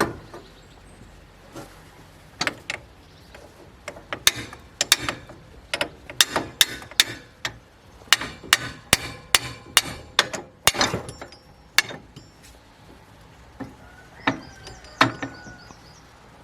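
Metal tools knocking and clanking against metal parts during tractor repair work: irregular sharp knocks, coming about two a second through the middle stretch, a few of them ringing briefly.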